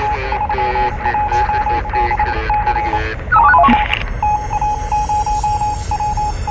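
Radio signal sound effects: a single beeping tone keyed on and off in irregular lengths like Morse code, over a garbled, wavering radio voice. About three and a half seconds in, a short, loud run of quickly stepping electronic tones, like dialling tones, cuts across with a burst of static.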